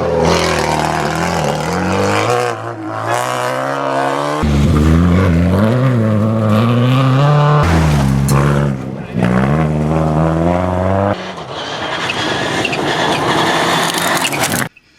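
Rally car engine revving hard and climbing in pitch, dropping back at each gear change, about three times. Near the end it gives way to a rushing of tyres and gravel as the car goes by, then cuts off suddenly.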